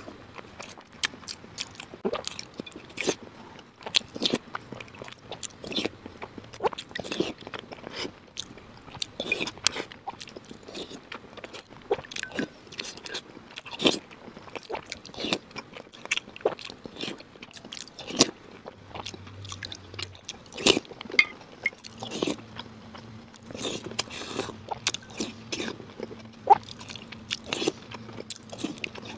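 A person eating boiled eggs from a spoon: biting, chewing and wet mouth smacks, with many sharp, irregular clicks.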